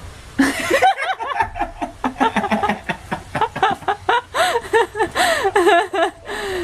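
A person laughing hard, a long run of quick pitched bursts that starts about half a second in and stops shortly before the end.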